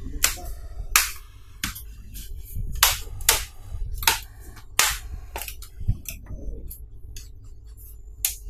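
Plastic snap-fit clips of an HP Pavilion 15 laptop's palmrest top case clicking into place as it is pressed down onto the base: a string of about a dozen sharp snaps at uneven intervals, the loudest in the first half.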